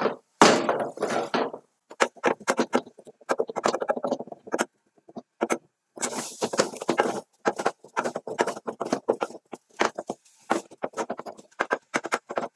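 Wooden spoon knocking and scraping against an aluminium saucepan as thick cabbage fufu dough is mashed and turned, a run of irregular taps with a couple of longer scrapes. It is stirred continually to keep the dough from sticking to the bottom of the pot.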